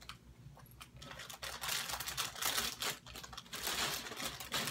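Packaging of a blind-box vinyl figure being crinkled and torn open by hand. It is quiet for about the first second, then dense crinkling and tearing carries on, with many sharp crackles.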